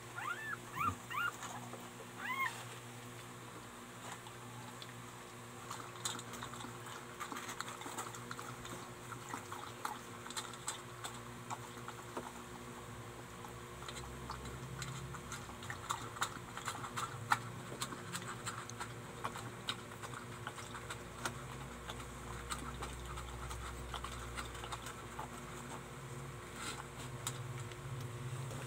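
Siberian husky lapping a milky drink from a stainless steel bowl: a rapid run of small wet tongue clicks and splashes. A few short, high rising-and-falling squeaks come in the first couple of seconds.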